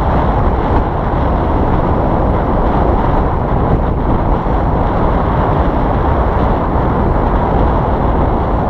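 Wind buffeting the microphone: a loud, steady, low rumble with no breaks.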